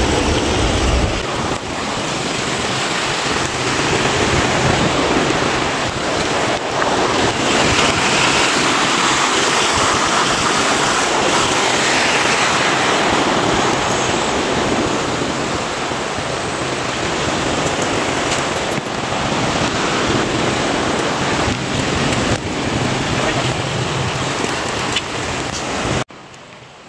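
Sea surf and wind making a loud, steady rush that drops away suddenly near the end.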